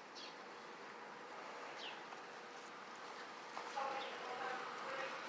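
Faint background noise with two brief high chirps that fall in pitch, one at the start and one about two seconds in, and faint steady tones coming in near the end.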